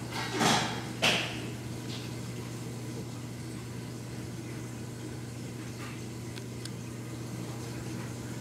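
Steady hum of aquarium pump equipment with faint water hiss. A short noise about half a second in and a sharp knock just after a second stand out above it, the loudest sounds here.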